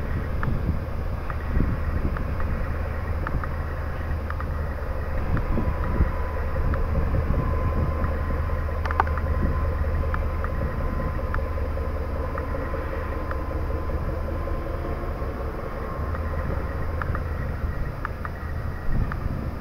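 Class 363 diesel shunting locomotive with its 600 hp Caterpillar engine running steadily as it rolls slowly away across the yard, heard as a low drone, with a thin steady whine for several seconds in the middle. Wind buffets the microphone.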